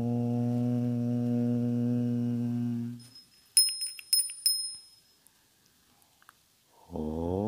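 A long chanted 'Om' held on one steady low pitch until about three seconds in, then a small bell rung several quick times with a high ringing tone. The chant starts again near the end, first sliding up in pitch before settling.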